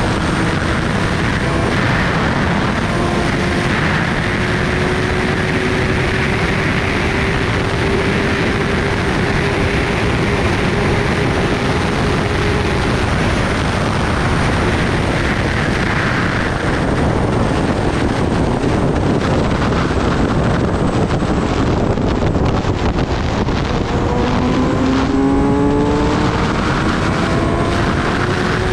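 Heavy wind noise on the microphone at highway speed, with the Kawasaki Ninja ZX-10R's inline-four engine running underneath. The engine note climbs slowly in the first half, then rises quickly a few seconds before the end as the bike accelerates.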